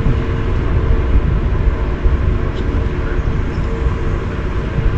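Cruise ship under way: a steady, loud low rumble of wind and ship noise on deck, with a constant mid-pitched hum underneath.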